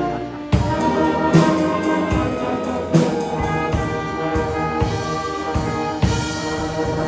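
Wind band playing, with brass (trumpets and trombones) carrying held chords and sharp drum accents punctuating the music a few times.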